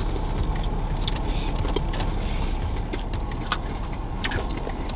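Steady low hum of a car cabin, with scattered crisp crunches and clicks of people biting and chewing chocolate sandwich cookies.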